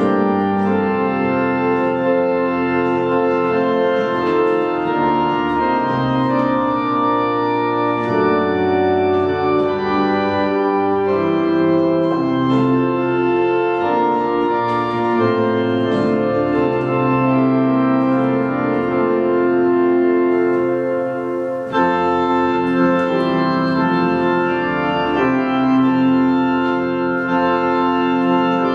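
Organ playing a hymn tune in slow, sustained chords, with a short break between phrases about two-thirds of the way through.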